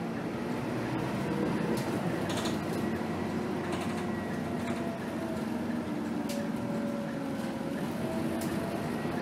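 Cabin sound of a Scania K280 city bus under way: the engine and drivetrain run with a steady hum and a higher whine that falls slowly and rises again. A handful of short rattles and clicks come from the bus interior as it moves.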